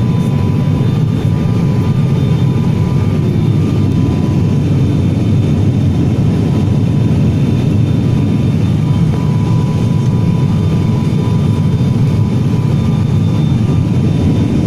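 Steady engine and airflow roar inside an airliner cabin during the descent, with a faint steady high whine over it.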